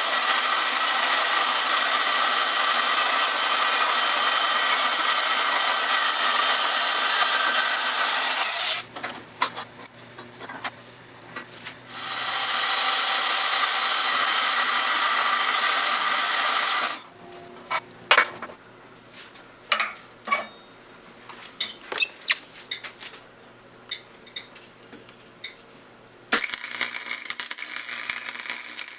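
An electric power tool running in two long runs, about nine seconds and then about five seconds, each cutting off suddenly. Between and after them come scattered sharp clicks and knocks, and near the end a different, higher-pitched steady run of a tool starts.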